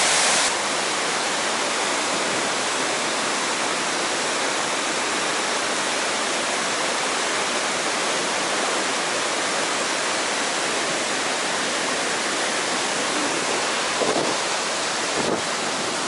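Fast-flowing river water pouring over a low dam spillway and churning through rapids: a steady, even rush of water noise that eases slightly about half a second in. A few faint knocks near the end.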